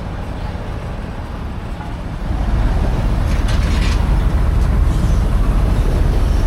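A restored 1913 Thew steam shovel's steam engine and gearing running with a steady low rumble, which grows louder a little over two seconds in. A brief hiss comes about three and a half seconds in.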